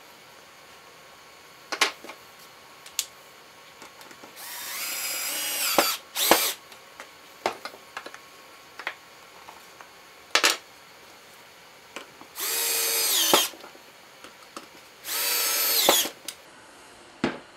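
Festool CXS cordless drill-driver running in three short bursts, about one to one and a half seconds each, driving screws into a small wooden stool's frame; in each burst the motor whine climbs and then drops at the end. Sharp knocks of wooden parts being handled come between the bursts.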